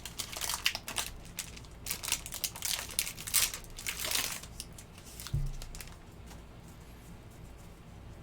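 Foil wrapper of a trading-card pack crinkling as it is torn open and handled, with a soft thump about five seconds in. It settles to quiet handling after that.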